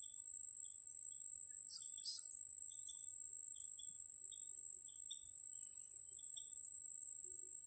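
Insects trilling outdoors: a steady high-pitched drone with short chirps repeating about twice a second, and two louder chirps about two seconds in.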